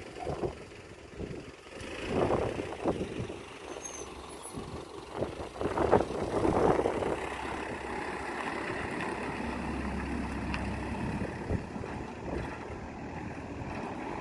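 Vehicles passing a railway level crossing. The noise swells about two seconds in and again around six seconds in, then settles into a steadier rumble.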